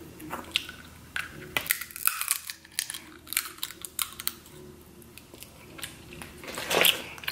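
Wet chewing and mouth smacking of a person eating king crab meat by hand: irregular clicks and crackles, the loudest about half a second before the end.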